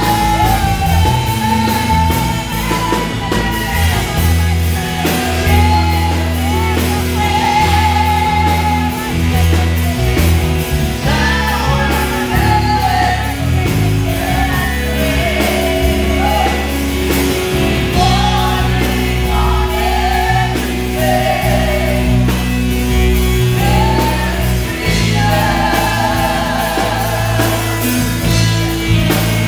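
Live contemporary worship song: a woman sings lead into a handheld microphone over amplified instrumental accompaniment with sustained low bass notes.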